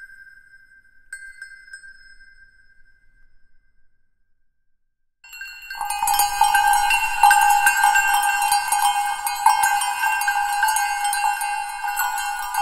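Music of bell-like metal tones. A single ringing tone fades away, with a lighter second strike about a second in; after a short silence, a dense, continuous ringing of many bells and jingles starts about five seconds in and carries on.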